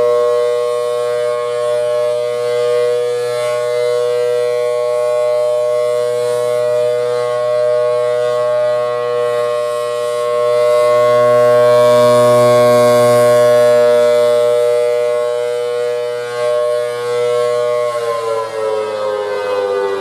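Federal Thunderbolt 1000T siren with a 4/5 chopper sounding a steady two-note chord at full speed, swelling and fading in loudness as the horn rotates. Near the end the pitch starts to fall as the siren slows.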